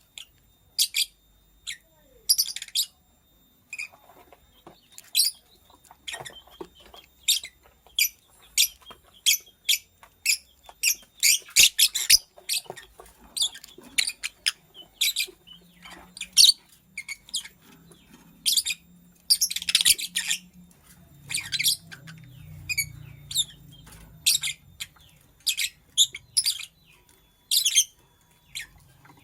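A lovebird's short, sharp, high-pitched chirps repeating over and over, about one or two a second, with rapid flurries of chirps near the middle and again about two-thirds of the way through.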